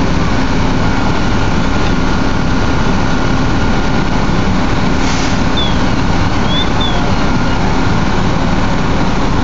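Fire engine running steadily: a continuous heavy engine rumble with a faint steady whine above it.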